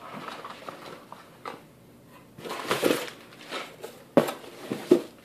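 Unboxing and handling of paper and packaging on a wooden tabletop: rustling bursts, then two sharp knocks near the end.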